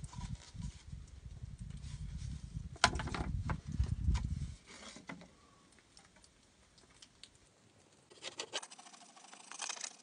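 Wooden boards being handled and knocked against each other, with several sharp wooden knocks about three seconds in over a low rumble that cuts off suddenly. Near the end, a pencil scratching a marking line across a wooden board.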